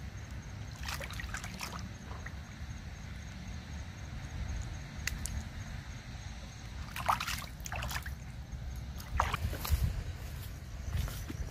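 Water sloshing and splashing in a plastic basin as a live fish is handled in it: several short splashes over a low steady rumble.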